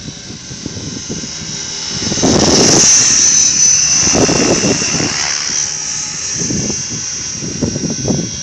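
A 550-size radio-controlled helicopter in flight, making a steady high-pitched whine that swells louder for a few seconds from about two seconds in. Gusts of wind buffet the microphone throughout.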